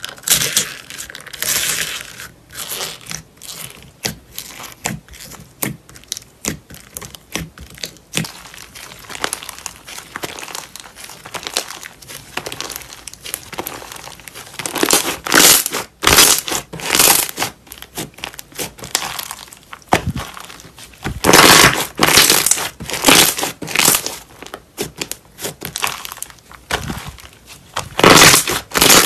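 White slime mixed with beads being pressed, stretched and kneaded by hand, giving a run of crackling and crunching pops. The crackling grows louder about halfway through and again near the end.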